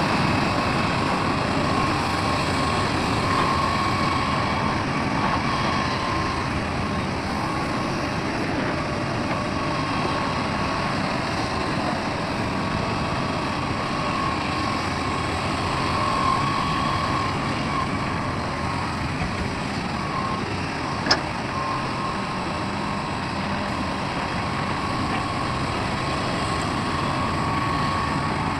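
Heavy diesel machinery, an excavator working beside a dump truck, running steadily with a faint whine over the engine noise. A single sharp knock about twenty seconds in.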